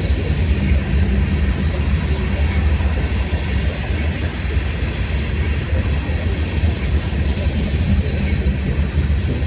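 Freight train cars rolling past close by: a steady, loud rumble of steel wheels on the rails.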